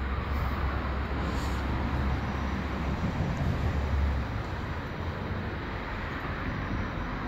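Steady rumble of vehicles and trains around a railway station, with a heavy low drone that fades out a little over four seconds in, leaving a lighter wash of background noise.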